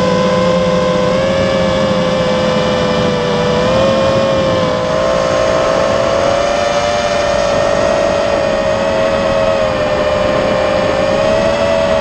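Spedix Black Knight 210 racing quadcopter's brushless motors and propellers whining steadily, heard from its onboard camera, the pitch drifting slightly up and down as the throttle changes, over a constant rush of air.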